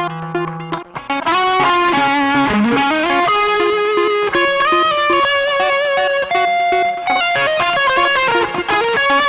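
Electric guitar played through a BOSS SL-20 Slicer pedal, its notes chopped into rhythmic stuttering pulses. After about a second it gives way to a busier sliced riff with bent, gliding notes.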